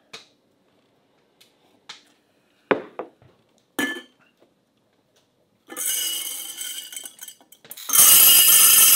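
Glass jars and a stainless steel funnel clinking as they are set down, then dried goods pouring through the metal funnel into a glass jar: a rushing rattle from about six seconds in, and a louder one as dried red beans pour in from about eight seconds.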